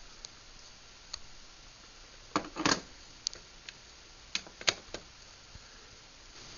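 Quiet room tone broken by scattered short, sharp clicks and taps, the loudest a close pair a little over two seconds in and another pair near the middle.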